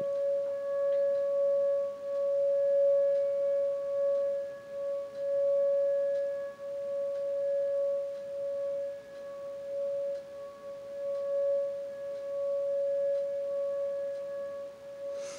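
Outdoor tornado warning siren sounding during its weekly test: one steady, unchanging pitch whose loudness slowly rises and falls.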